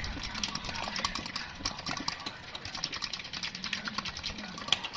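Minced pork being mixed and worked by hand in a glass bowl while seasoning is sprinkled in: a rapid, irregular run of small sticky clicks.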